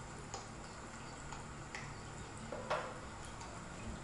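Porcelain and glass tea ware being handled on a wooden tea tray: a few light clinks and taps, the loudest near three seconds in, over a low steady hum.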